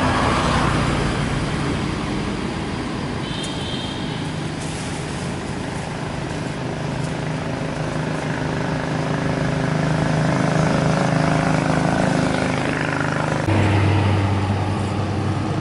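A steady, low mechanical hum, like a nearby engine running, over a wash of outdoor noise. Near the end it changes to a different, stronger low hum.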